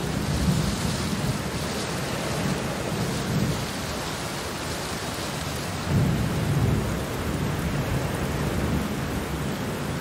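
Steady rain with low rumbles of thunder, swelling about half a second in and again about six seconds in.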